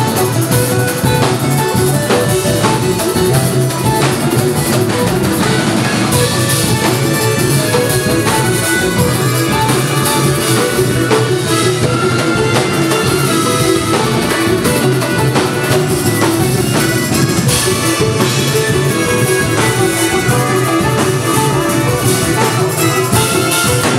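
Live funk band playing a full-band groove: drum kit keeping a steady beat under electric bass and electric guitar, loud and continuous.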